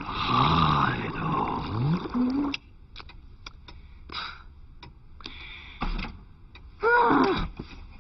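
Cartoon character's grunting and groaning vocal effects with gliding pitch over a hissing haze, cut off abruptly about two and a half seconds in. Then only a few faint clicks, and near the end a short sliding vocal sound like a sigh.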